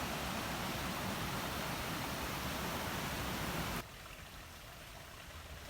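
Steady rushing outdoor noise that drops off abruptly about two-thirds of the way through, leaving a fainter background hiss.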